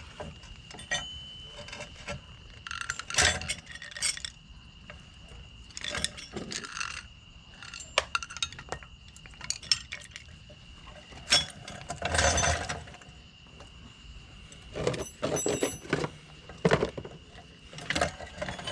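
Irregular metallic clinks and knocks of a Phillips screwdriver and screws being worked on a cast-metal part, some in quick clusters, over a steady high-pitched tone.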